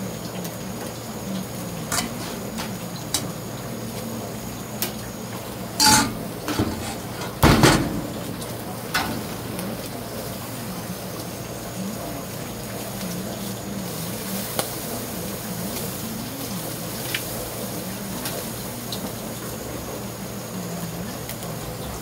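Eel fillets sizzling on a wire grill over charcoal: a steady hiss with scattered sharp crackles, two louder ones a little before the middle, as fat drips onto the coals.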